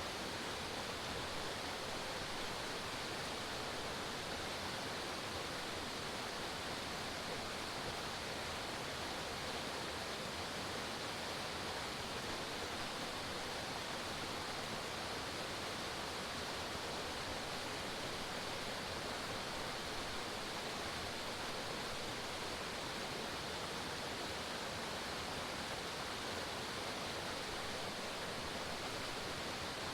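Forest waterfall pouring, a steady, even rush of falling water with no breaks.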